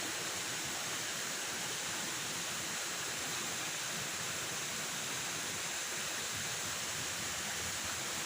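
Steady rushing noise of running water, even throughout with no distinct events.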